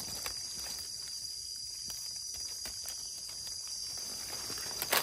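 Steady high-pitched chorus of insects in the forest, with scattered faint clicks and rustles and one sharper click near the end.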